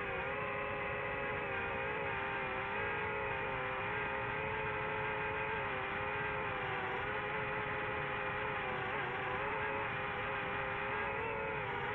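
DJI FPV drone's electric motors and propellers whining steadily, the pitch wavering slightly with throttle changes.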